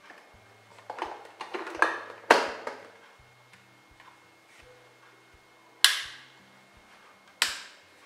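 Plastic and glass clatter from handling a drip coffee maker. A run of clicks and knocks comes in the first few seconds, the loudest as the filter basket swings shut, then two sharp clicks about a second and a half apart, over soft background music.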